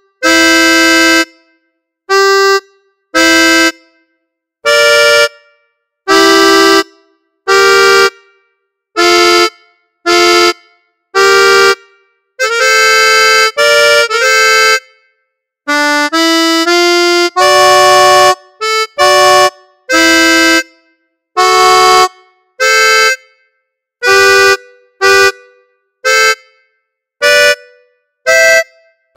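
Accordion app on an iPad sounding a Hohner three-row diatonic button accordion in F, playing a tune as separate detached chords and notes. Each one is cut off short with a moment of silence before the next, about one a second, with quicker runs of notes in the middle.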